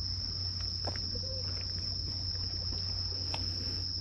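A steady, unbroken high-pitched insect trill, like a cricket's, over a low hum, with a few faint clicks.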